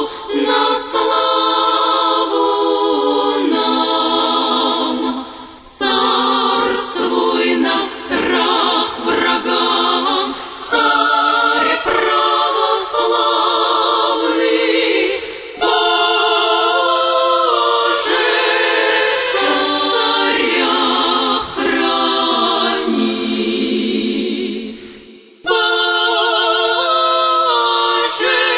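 Choir singing a slow hymn a cappella, several voices in phrases, with a long held chord near the end that breaks off briefly before the singing starts again.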